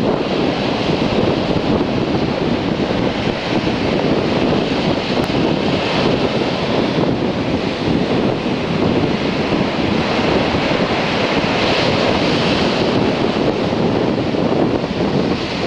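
Ocean surf breaking and washing up the sand: a continuous loud rush that swells now and then as waves crash. Gusty wind buffets the microphone throughout.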